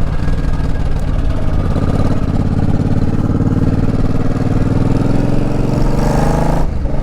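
Custom cruiser motorcycle engine running while riding, steady at first, with a brief rise in pitch about six seconds in and then a sudden drop.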